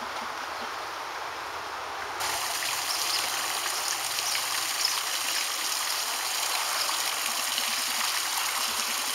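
Water splashing and trickling steadily in a fountain, cutting in suddenly about two seconds in; before that, only faint outdoor background noise.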